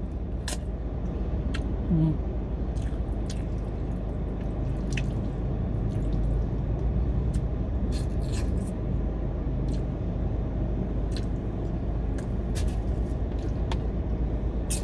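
A person eating spaghetti and meatballs up close, chewing with scattered wet mouth clicks, over a steady low hum of the car's air conditioning.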